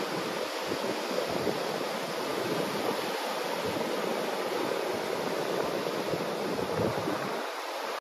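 Small ocean waves washing in over a shallow sandy beach, with surf breaking farther out: a steady wash of water noise with no single loud crash.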